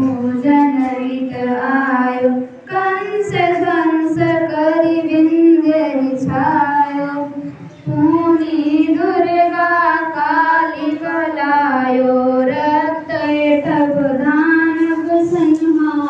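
A large group of schoolchildren and their teachers singing an aarti hymn together in unison, with children's voices loudest; the melody pauses briefly between phrases about three and eight seconds in.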